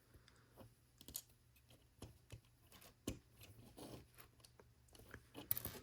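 Faint, scattered clicks and light knocks of plastic LEGO pieces being handled and pressed together, a few each second, with a small cluster near the end.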